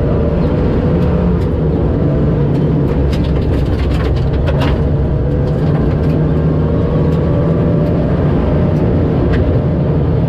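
Rally car's engine running at steady revs, heard from inside the cabin, with a cluster of sharp knocks and rattles from the gravel road a few seconds in and another near the end.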